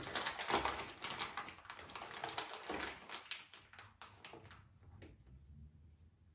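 Plastic vacuum-sealer bag crinkling and crackling as hands press and smooth it around a beef roast: dense crackles at first, thinning out and fading after about three seconds.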